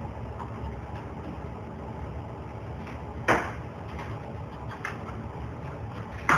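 Two sharp knocks about three seconds apart, with a few faint clicks between them, from work on a wall being torn down, over a steady low rumble.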